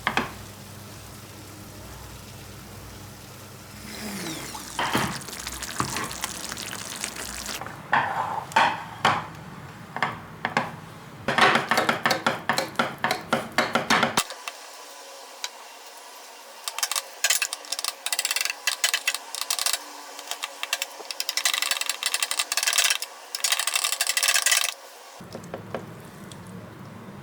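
Kitchen cooking sounds: a utensil knocking and scraping against pots and dishes in quick runs of strokes. The background changes abruptly twice.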